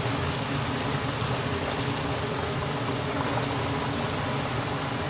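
Soft-shell crabs deep-frying in a wok of hot oil: a steady sizzling and bubbling.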